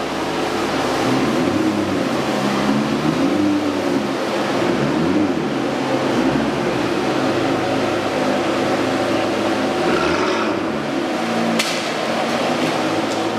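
McLaren P1's twin-turbo V8 running at low revs while the car is driven slowly, the engine note rising and falling with small throttle changes, in an underground car park. A sharp click sounds about three-quarters of the way through.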